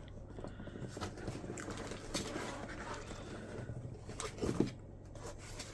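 Paper or plastic packaging rustling as the contents of a box are handled, with a few light clicks and knocks.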